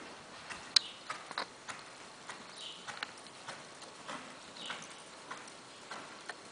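Hoofbeats of a two-year-old Quarter Horse gelding trotting under a rider on the soft dirt footing of an arena: a run of irregular soft thuds and clicks, roughly two a second, with one sharp click a little under a second in.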